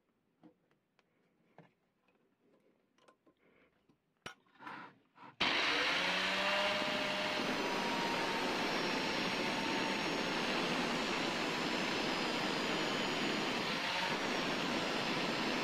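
A few faint clicks and knocks from hands setting the indexing fixture, then about five seconds in an angle grinder with a thin 2.5 mm cut-off disc starts abruptly and runs steadily and loudly, grinding a slot between the blades of a Hastelloy X turbine wheel blank.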